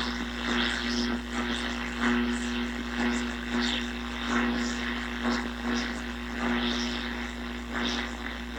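Yaesu FRG-7 communications receiver tuned to the AM broadcast band: station audio comes through noise and static from its speaker, over a steady low hum. The owner puts the hum down to the simple wire antenna picking up AC.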